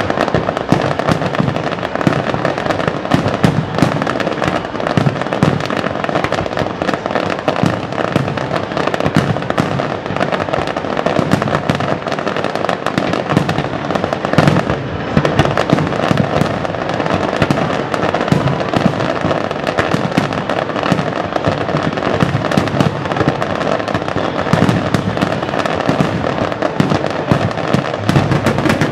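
Fireworks display going off in a dense, unbroken barrage of rapid pops, crackles and bangs from ground-fired mines and crackling stars, at a steady loud level with no pauses.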